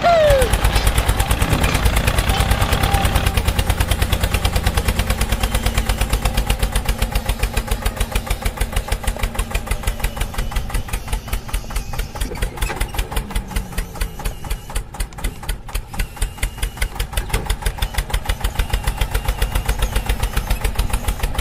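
Tractor engine chugging steadily, an even knocking beat of about five pulses a second.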